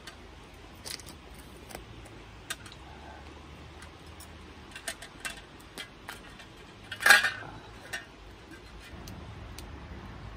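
Scattered light clicks and taps of hands and a knife working a cooked lobster on a stainless steel tray, with one louder noise about seven seconds in.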